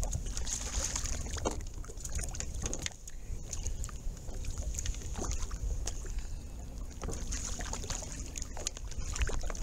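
Water lapping and sloshing against a fishing boat's hull, over a low wind rumble on the microphone, with scattered small clicks and knocks.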